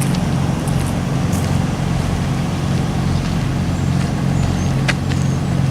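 Steady low rumble of a motor vehicle engine running, with a few brief sharp clicks about a second in and near the end.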